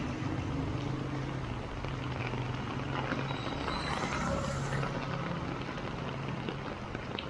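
Motor vehicle engine running with a low steady hum through heavy rain, the hum fading in the second half. About four seconds in, a brief swell of hiss like tyres on a wet road, with rain falling throughout.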